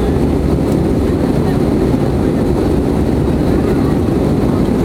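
Cabin noise of an Airbus A320 climbing after take-off: a steady low rumble of the jet engines and rushing air, heard from inside the passenger cabin.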